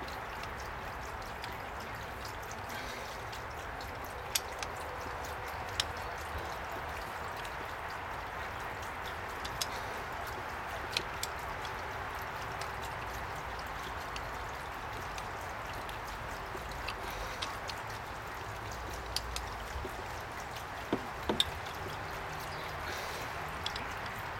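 Screwdriver turning the screw of a hose clamp on a metal male garden-hose end, giving a few sharp, scattered metallic clicks, a cluster of them near the end. Under them runs a steady hiss.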